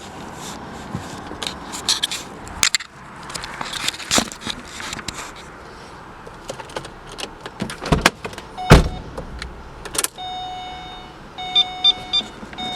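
Car keys jangling with handling clicks and knocks, one sharp knock the loudest, then the Pontiac G8's electronic dashboard chime sounding steady tones and a few quick beeps as the ignition is switched on without starting the engine.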